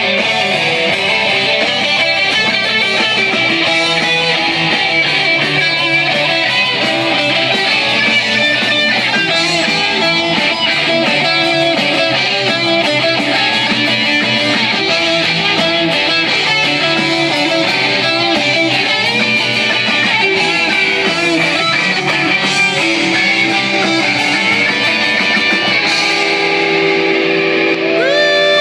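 A rock band playing a song live, electric guitars to the fore, at a steady level throughout.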